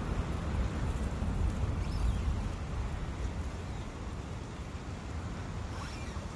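Steady rushing of a woodland brook, with a low rumble underneath.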